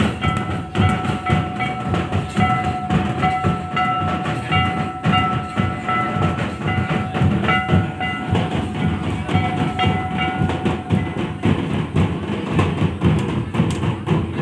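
Santali barrel hand drums (tumdak') beaten in a fast, dense rhythm for dancing, with a high melody of long held notes over them that stops about eleven seconds in.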